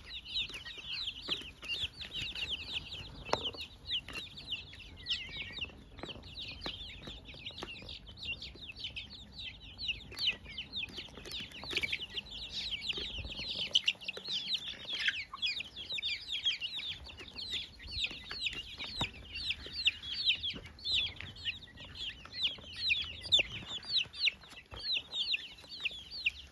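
A flock of young chicks peeping constantly, many short, high, downward-sliding cheeps overlapping throughout.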